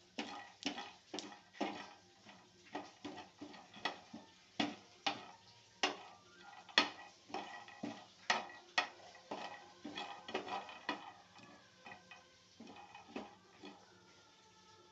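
Spatula stirring peanuts dry-roasting in a metal pan: irregular sharp clicks and scrapes, a few a second.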